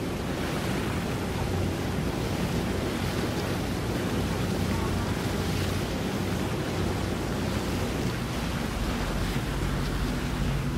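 Wind buffeting the microphone over lapping water, with the low steady hum of a boat engine underneath.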